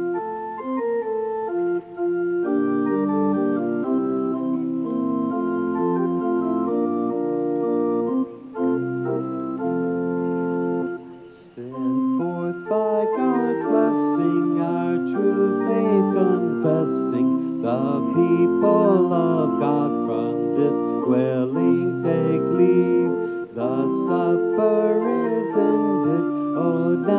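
Organ playing a hymn in sustained chords; about twelve seconds in, voices begin singing along with it.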